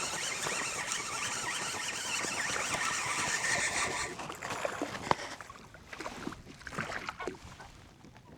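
Spinning fishing reel being cranked fast, a steady whirring hiss with a wavering whine, while a hooked bass is reeled in; the cranking stops about four seconds in. It is followed by light clicks, a sharp click and small splashes as the fish is brought alongside the kayak.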